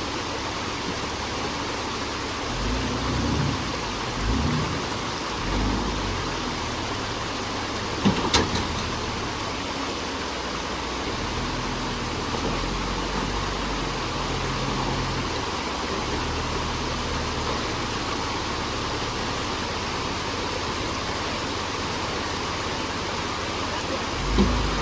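Jeep Wrangler TJ on 35-inch tyres crawling a rock obstacle: the engine swells in short low bursts of throttle over a steady hiss, with two sharp knocks about eight seconds in.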